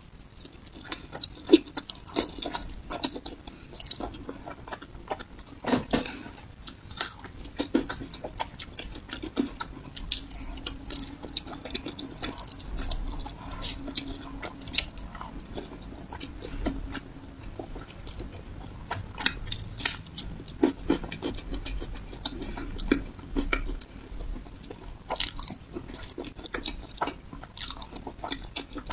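Close-miked biting and chewing of slices of glazed pork belly: wet mouth sounds with many short, irregular clicks throughout.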